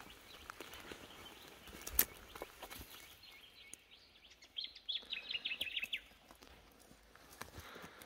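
Footsteps pushing through grass, ferns and fallen sticks, with a sharp snap about two seconds in. Near the middle a bird gives a quick run of high chirps lasting about a second.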